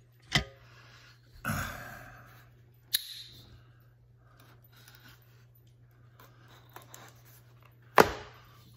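A folding knife slitting the tape on a small cardboard box, with box-handling rustles and scrapes. Separate clicks are heard, the sharpest and loudest near the end.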